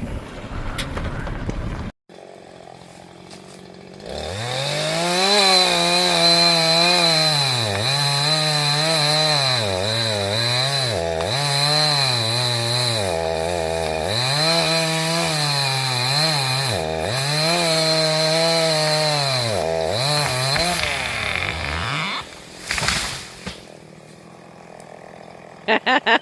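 Two-stroke chainsaw running at high revs while cutting a tree: its engine note sags and recovers again and again as the chain bites into the wood. It starts a few seconds in and stops near the end.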